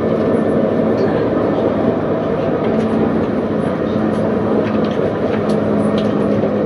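Running noise heard aboard a CAF Urbos 3 light rail vehicle travelling along the track: a steady rumble with a low hum that comes and goes.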